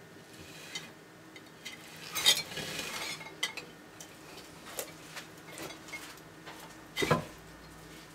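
A Dumeril's monitor lizard lunging for and snatching food off a stone ledge: a burst of scraping and clatter about two seconds in, then scattered clicks and knocks, with one loud knock near the end.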